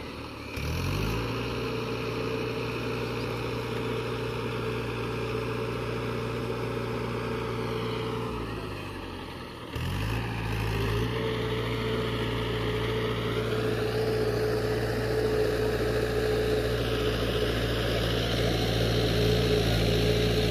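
Mahindra tractor's diesel engine running as it drives through mud, its note rising just after the start and holding steady. About eight seconds in the engine note sags and falls away, picks up again suddenly about ten seconds in, then runs steadily, slightly louder toward the end.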